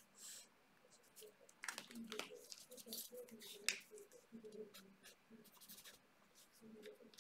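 Marker pens drawing on paper: a faint run of short scratchy strokes, busiest in the middle.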